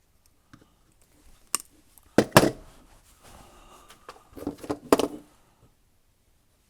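Hand tools and small metal parts clicking and clattering on a workbench while a crimp connector is fitted to a control-cable wire. There is a loud double knock a little after two seconds in and a cluster of clatters near five seconds.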